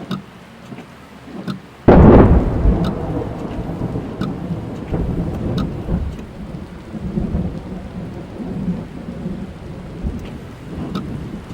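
A sudden loud thunderclap about two seconds in, rumbling on through the rest, over rain falling on a car, heard from inside the car. Single raindrops tick sharply now and then.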